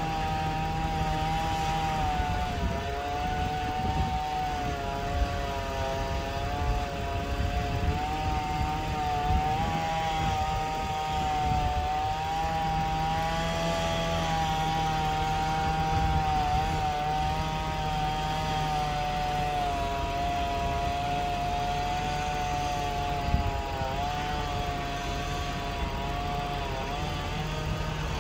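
Chainsaw running at high speed while cutting into the trunk of a tree being felled, its steady pitch wavering slightly and dipping now and then under load.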